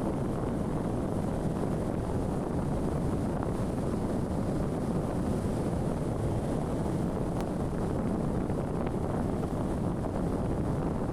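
Wind buffeting the microphone: a steady low rushing with a fluttering rumble underneath.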